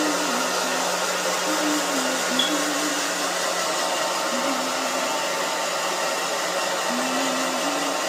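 Hand-held hair dryer running steadily, a constant rush of air over a low motor hum, blowing on a cockatoo.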